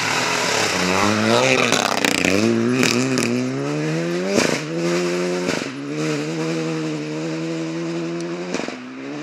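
Renault Clio Rally4 rally car driven hard on a stage, its engine note rising as it accelerates, broken by a few sharp cracks at the gear changes about four and a half, five and a half and eight and a half seconds in, then holding a steady note as the car pulls away.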